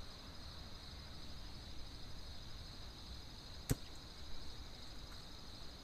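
Insects chirring steadily in one high, even pulsing band, with a single sharp click about two-thirds of the way in.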